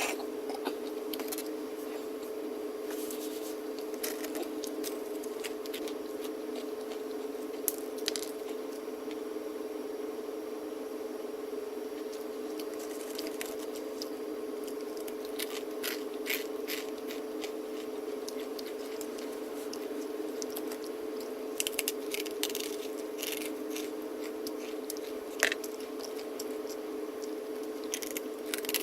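Close-up chewing and biting of crispy baked cheese sticks or pizza crust: scattered crunches and soft wet mouth sounds, over a steady hum.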